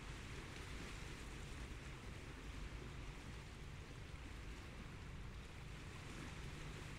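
Steady shoreline ambience: an even hiss of small waves washing on the beach, over a low, steady drone of a distant engine.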